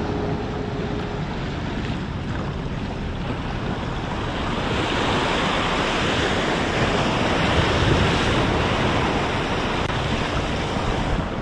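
Ocean surf washing and splashing against the jetty rocks, with wind on the microphone. A wave surges in louder a little before the middle and eases off again about two-thirds of the way through.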